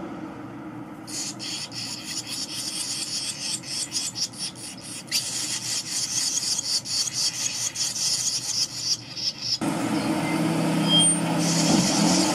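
Thirteen-day-old barn swallow nestlings begging with a fast, high, rasping chatter as a parent arrives to feed them. The chatter starts about a second in, pauses briefly near the end, then starts again. A low hum comes in under it near the end.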